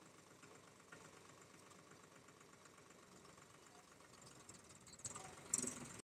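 Tractor's diesel engine idling faintly and steadily. A few sharp knocks come near the end, the loudest about five and a half seconds in.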